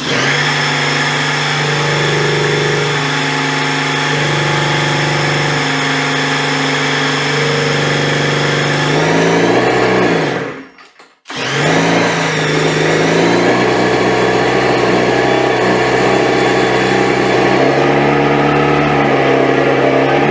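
Custom-built 100cc fuel-injected two-stroke race engine running on its first start, with small changes in engine speed. Its speed rises briefly before it cuts out about ten seconds in; it fires again about a second later and runs on. The builders reckon it needs more fuel.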